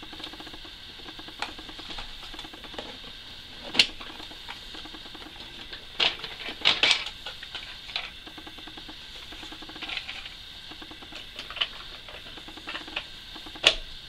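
Hard plastic clicks and knocks from the motor cover and housing of a Hoover PurePower upright vacuum being taken apart and handled, with light rattling between; the sharpest knocks come about 4 s in, around 6 to 7 s in, and near the end.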